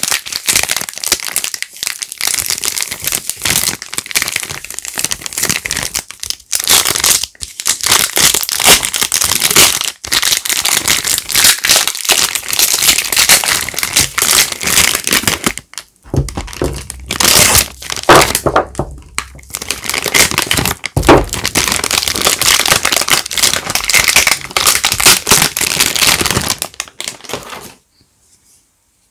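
Soap wrappers being crinkled and torn open by hand: dense, continuous crackling with short pauses, and two dull knocks in the second half. The crackling stops suddenly near the end.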